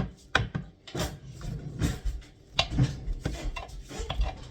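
A dull kitchen knife sawing and chopping through vegetables on a wooden cutting board, in irregular scraping strokes with a few sharper knocks.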